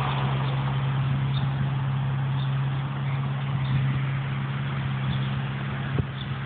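A steady low mechanical hum at one constant pitch, like an engine or motor running, over a background hiss. A single short click about six seconds in.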